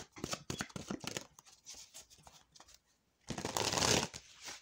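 Tarot cards being handled and shuffled by hand: a run of quick card clicks and flicks, then a louder burst of rustling shuffle about three seconds in.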